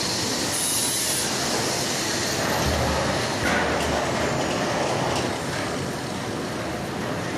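Large hanging-type shot blasting machine running: a steady, dense noisy hiss, with a faint high whine that falls slowly in pitch a few seconds in.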